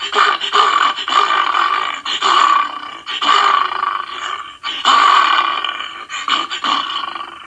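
The Sea Bear cartoon monster roaring and growling: a run of loud, rough roars broken by short gaps, dying away near the end.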